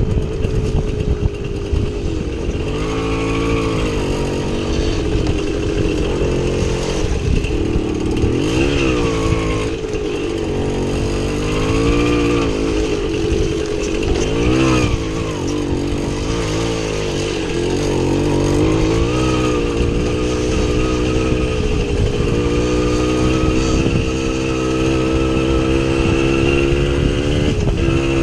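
Small two-stroke motorcycle engine under way off-road, its pitch rising and falling again and again with the throttle and gear changes, over a heavy low rumble.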